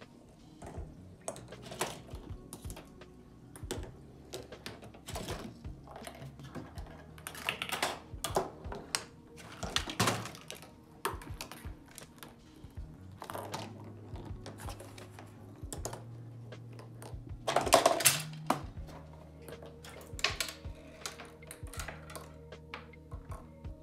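Ping-pong balls and plastic and wooden parts of a homemade chain-reaction machine clicking, rattling and knocking along Hot Wheels track and K'nex pieces: a busy run of light clicks and taps, with louder clattering bursts at about 10 s and 18 s.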